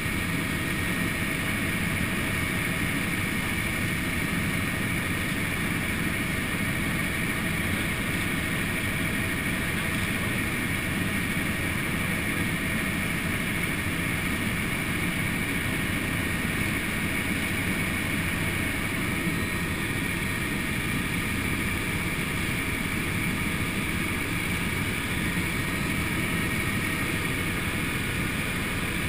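Helicopter in flight, heard from inside the cabin: a steady drone of engine and rotor with a thin high whine over it, unchanging throughout.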